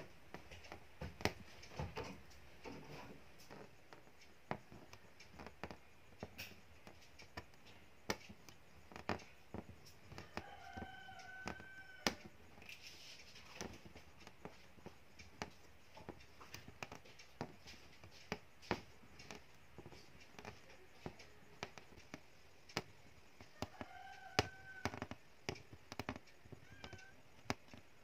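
Aari hook needle punching in and out of taut fabric while working a double chain stitch in zari thread, making sharp, irregular ticks about once a second. An animal calls briefly in the background twice, about ten seconds in and near the end.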